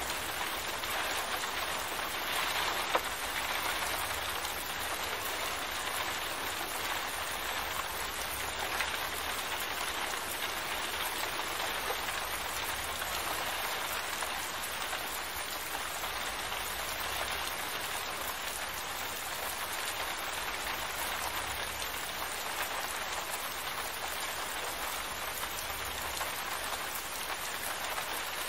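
Steady rain falling, with one sharp tick about three seconds in.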